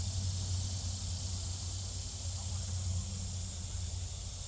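A steady low engine hum, like a vehicle idling, under a constant high buzz of insects.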